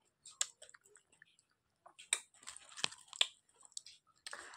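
Close-up chewing and biting of crisp fried fish: scattered mouth clicks and a few sharp crunches, strongest about two to three seconds in.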